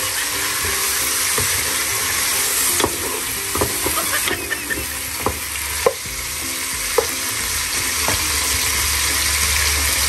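Chicken with ginger, garlic and onion sizzling steadily in hot oil in a pan. A stirring utensil knocks and scrapes against the pan every second or so.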